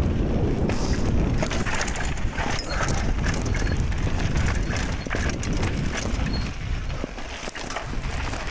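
Mountain bike riding fast down a rough dirt singletrack: the bike rattles and clatters over the ground in quick irregular clicks, with wind rumbling on the phone's microphone. The rumble eases near the end.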